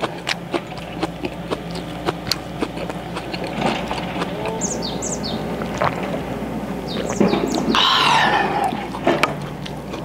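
Light clicks and taps of eating with chopsticks, then drinking from a can, with birds chirping around. About eight seconds in, a loud wavering call lasts under a second.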